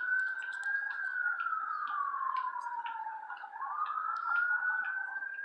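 Emergency vehicle siren wailing, rising and falling slowly in pitch: it peaks about a second in, sinks to its low point about three and a half seconds in, then climbs again. Faint light clicks sound now and then.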